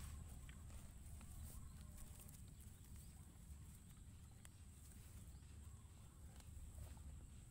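Near silence: a faint low rumble with a few soft scattered ticks.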